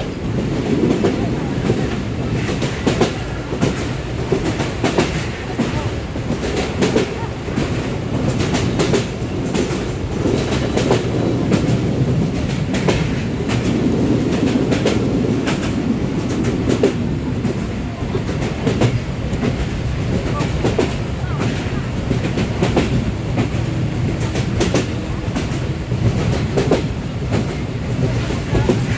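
Moving train running along the track: a steady rumble with the clickety-clack of wheels over rail joints and frequent sharp rattling clicks.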